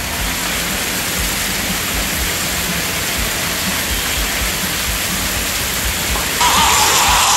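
Heavy rain mixed with dime-sized hail pouring down, a steady rushing hiss. About six seconds in it abruptly turns louder and harsher.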